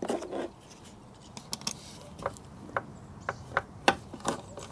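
Irregular light clicks and ticks of a hand screwdriver turning a bolt into a rivnut in a van's pillar, through a carpet-covered wooden block, with a brief scuff as the block is handled at the start.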